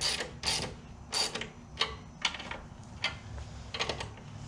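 Socket ratchet clicking in short, irregular strokes as it tightens a chain adjuster bolt on an ATV's swingarm, taking up slack in the drive chain.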